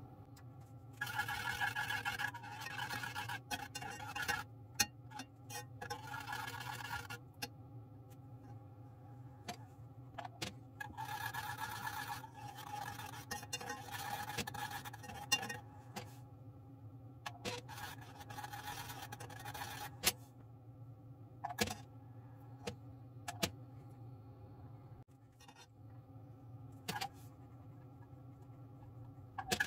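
Kitchen utensils scraping and clicking against bowls and a pot in several short spells of one to four seconds, with single sharp taps between them, over a steady low hum.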